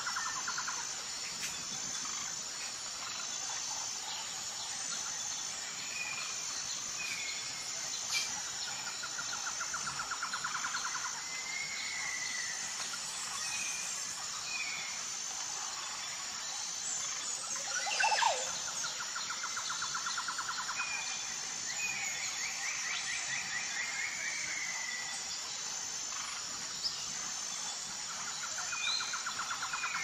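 Tropical bird-and-insect ambience: a steady, pulsing insect chorus high up, with birds chirping and whistling over it. A rapid trilling call comes back about every ten seconds, and one loud call swoops down in pitch about eighteen seconds in.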